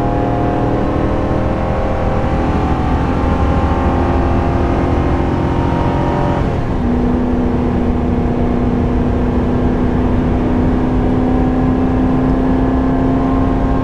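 Chevrolet Silverado 2500HD's 6.6-litre gas V8 under full throttle while towing a travel trailer, heard from inside the cab as the truck accelerates hard. The engine note changes abruptly about six and a half seconds in, as the six-speed automatic shifts up, then climbs slowly again.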